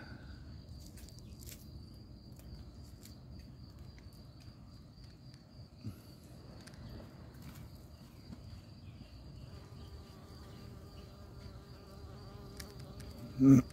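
A flying insect buzzing, a steady pitched hum with several overtones that starts about ten seconds in, over a faint steady high-pitched whine and light clicks and rustles from plant handling.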